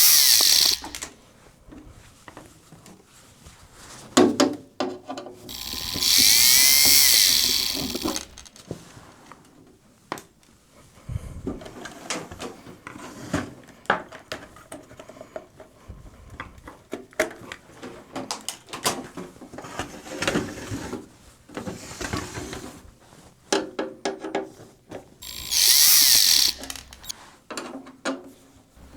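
Small power screwdriver whirring in three short runs, backing screws out of a DVD/VCR player's metal casing. Light clicks and knocks of screws and the case being handled come between the runs.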